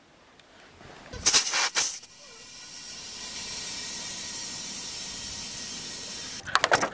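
Air hose chuck on a flat car tyre's valve stem: two short loud blasts of air, then a steady hiss of air flowing into the tyre for about four seconds, with more short blasts near the end.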